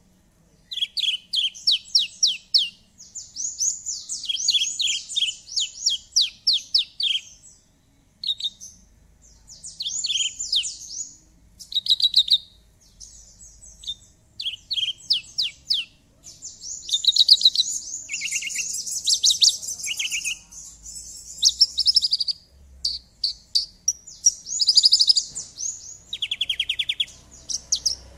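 Branjangan (Javan bush lark) singing continuously: fast, varied phrases made of rapid runs of short descending sweeps, delivered in bursts with brief pauses between them.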